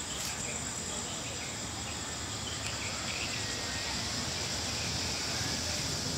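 Night insects trilling in a steady, high, pulsing drone over a low rumble.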